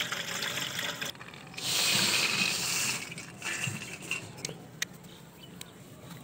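Soaking water poured from a steel plate through a cotton cloth into a steel bucket, straining soaked chickpeas: a steady gush for about a second, a brief pause, then a louder rush for over a second as the rest tips out. After that come a few faint clicks.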